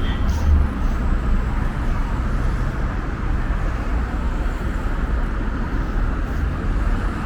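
Steady road traffic noise on a busy city street: vehicles running and passing with a constant low rumble.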